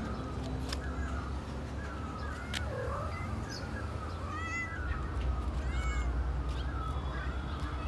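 Tabby cat meowing over and over in short calls.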